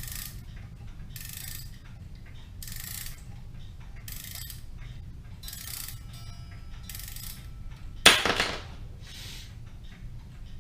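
Kienzle Vienna regulator clock movement being wound with its key: the ratchet clicks through each turn, giving six short rasping strokes about a second and a half apart. About eight seconds in there is one loud sharp knock that rings on briefly.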